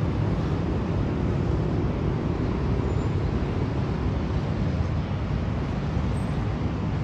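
Steady low rumble of distant city traffic, even and unbroken throughout.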